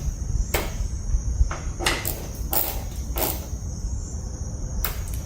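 Hand tool driving the tail light's T25 Torx screws back in: a series of short, irregular scraping strokes about every half second. A steady low rumble and a thin high tone run underneath.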